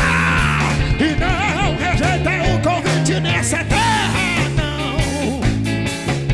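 Live band playing fast Pentecostal 'corinho de fogo' music with no lyrics sung: an electric guitar lead with bent notes over bass guitar and drums.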